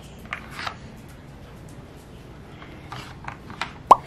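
Plastic treat packaging rustling and light clicks from hands handling treats and plastic puzzle-toy pieces. Near the end there is a single short squeak that falls in pitch, the loudest sound.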